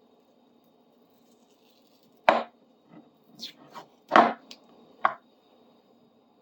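A handful of sharp knocks and taps on a workbench as the old bar clamp and its wooden handle are handled. The loudest knocks come about two seconds in and again about four seconds in, with lighter taps between and a last one about five seconds in.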